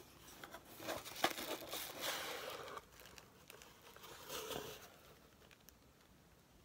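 Cardboard mailer box being opened by hand, its lid scraping and clicking, with the tissue paper inside crinkling. Loudest in the first three seconds, then fainter rustling.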